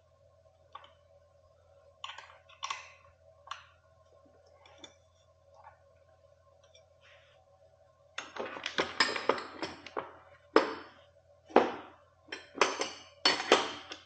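Small metal clicks of an Allen key working a fender-stay bolt. From about 8 seconds in, a quick run of louder metallic clinks and rattles as small hardware is sorted for the next bolt and washer, over a faint steady hum.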